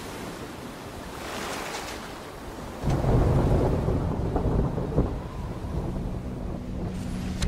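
A steady rain-like hiss, then about three seconds in a deep rumble of thunder sets in and slowly dies away.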